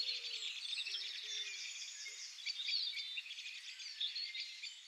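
Birds chirping faintly, a dense run of quick high chirps with a few lower calls, fading out toward the end.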